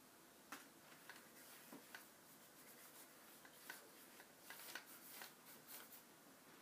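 Faint, short scratchy strokes of a flat brush dragging Indian ink across newsprint, about a dozen in an irregular series.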